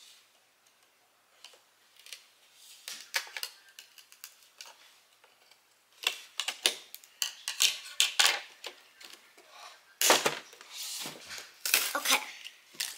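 Scissors snipping and scraping at packaging tape on a cardboard-and-plastic toy box, with irregular clicks and rustles of the box being handled; busier and louder in the second half.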